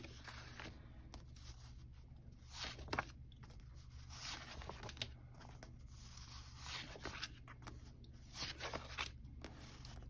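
Sheets of matte-paper planner stickers rustling and sliding against each other as they are flipped through by hand, faint, with a few short louder crinkles about three and four seconds in and near the end.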